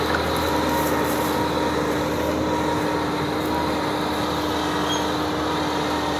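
Farm tractor's diesel engine running steadily under load as it pulls a disc harrow through dry ground, with a steady hum.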